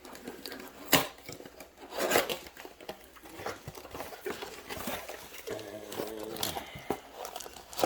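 New brake pads being taken out of their cardboard box: rustling packaging with several sharp metallic clicks and clinks as the pads and their hardware are handled.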